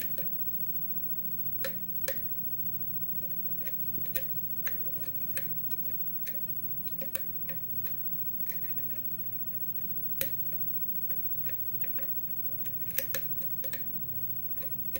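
Steel lock pick and tension wrench working the pin stack of a 6-pin Yale pin-tumbler cylinder: small, irregular metal clicks as pins are lifted and set. There is a louder click about ten seconds in and two quick clicks near the end, over a faint low hum. The picker believes a pin ended up overset.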